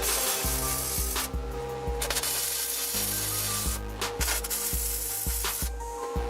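Background music with a steady beat and a bass line, over a rasping, scraping noise that starts and stops several times.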